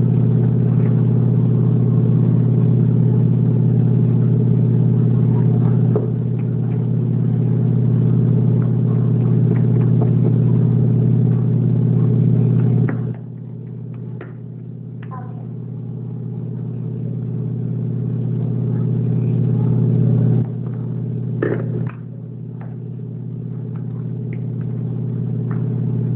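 Steady low electrical machine hum, like an appliance or fan motor running, dropping in level suddenly about halfway through and again a few seconds before the end, with a few faint clicks.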